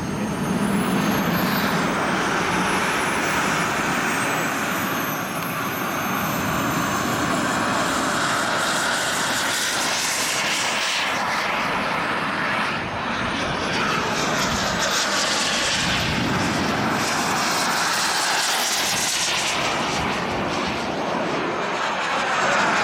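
Turbine engines of radio-controlled scale model jets running in flight. The steady jet noise carries a high whine that slides up and down in pitch as the jets pass overhead, and a close pass near the end gives a sweeping, phasing tone.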